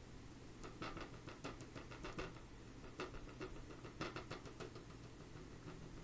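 Faint, irregular soft taps and scratches of a cotton swab dabbing paint onto paper, a few a second, over a low steady hum.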